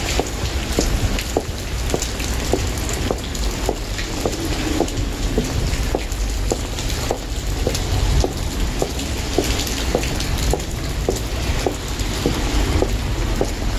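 Steady rain falling, with a person's footsteps walking at an even pace, about two steps a second.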